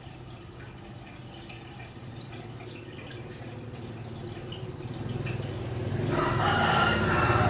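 Water trickling with small scattered drips, swelling over the last couple of seconds into a louder, steady bubbling and splashing.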